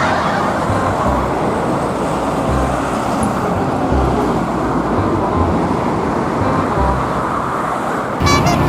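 Steady road traffic noise of motor vehicles running along a road. Music comes in near the end.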